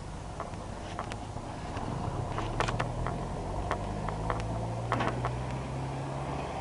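An engine running steadily, its low hum growing a little louder about two seconds in, with scattered sharp clicks and knocks over it.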